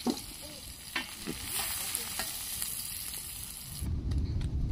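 Hot mustard oil sizzling in a steel kadai as fried green jackfruit pieces are scooped out with a slotted steel spoon, with a few short clinks and scrapes of the spoon against the pan and colander. Near the end the sizzle gives way abruptly to a louder low rumble with crackles.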